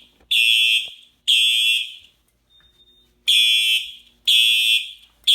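Fire alarm horn sounding the temporal-three evacuation pattern: loud, high-pitched blasts in groups of three, about one a second, with a longer pause between groups. The system has gone into alarm from a smoke detector set off with aerosol test smoke.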